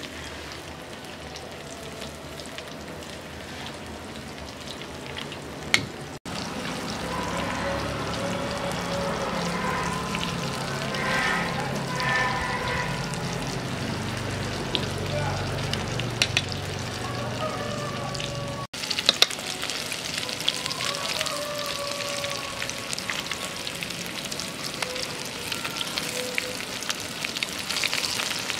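Breaded fish pieces deep-frying in hot oil in a steel wok, a steady sizzle with occasional light taps of chopsticks against the wok as the pieces are turned.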